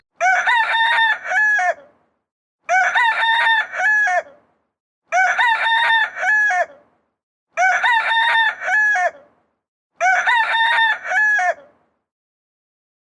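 A rooster crowing: the same recorded crow repeated five times, about every two and a half seconds, with dead silence between.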